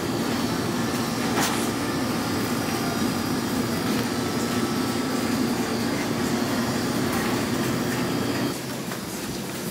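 Steady low machine hum of a shop's background noise, with a single light click about a second and a half in; the hum eases slightly near the end.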